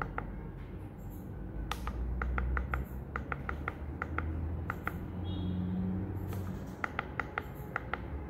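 Keypad of a Shanghai Rongde cargo-hold pressure alarm controller pressed again and again, each press giving a short beep, in quick runs of about five a second as the high-alarm setting is stepped up. A low steady hum runs underneath.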